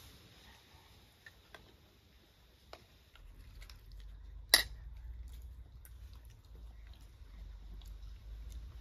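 Quiet eating sounds of a meal taken by hand: scattered small clicks and taps of food and dishes, with one sharp click about four and a half seconds in. A low rumble comes in about three seconds in.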